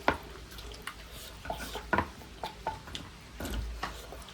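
Eating sounds: scattered light clicks and clinks of a utensil against a dish, with a few soft knocks.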